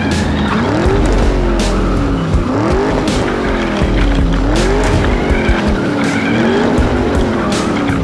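Racing-car engine sound, its pitch rising and falling again and again like repeated revving, with music underneath.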